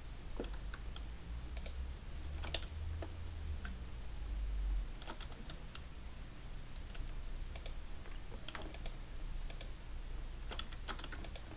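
Computer keyboard keys and mouse buttons clicking irregularly, a few at a time with short pauses between, over a low steady hum.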